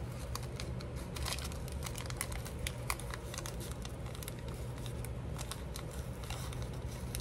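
Paper strips handled and shuffled, a light irregular rustling and crinkling with small crackles throughout, over a low steady hum.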